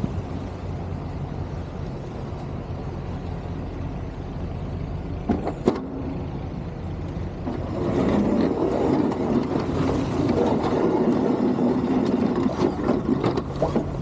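Snow-plow pickup truck running, heard from inside the cab, with a couple of sharp clicks midway. From about eight seconds in a louder, rougher rumble sets in as the plow works the driveway.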